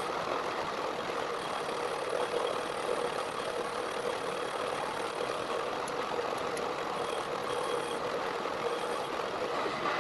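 Metal lathe turning the outside of a 108 mm steel drill pipe, the cutting tool taking a steady cut along it. Its running is even and unbroken, with a constant hum under the cutting noise.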